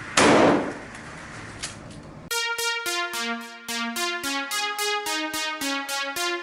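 A loud rushing whoosh that fades out. About two seconds in, background music starts: electronic intro music with quick plucked electric-piano or synthesizer notes, about four a second.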